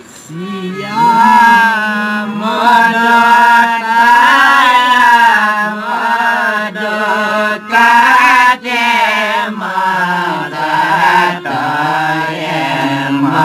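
Group of Newar folk singers singing a devotional song together, with a harmonium beneath the voices; the singing comes in about a second in.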